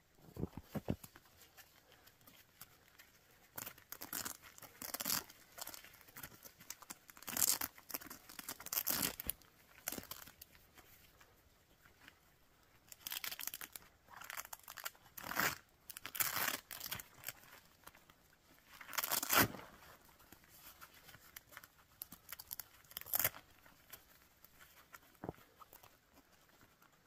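Nylon tent fabric rustling and crinkling in short, irregular bursts as the flap around a hot tent's stove jack is handled and worked open; the loudest burst comes a little past two-thirds of the way in.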